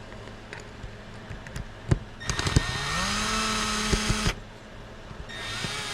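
Power screwdriver backing out screws: a sharp click, then the motor spins up with a rising whine and runs steady for about two seconds, and a shorter burst near the end.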